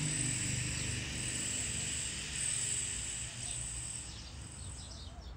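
Outdoor ambience with a steady, high-pitched insect drone in the background, such as crickets or cicadas, over a faint low hum. It grows a little quieter toward the end.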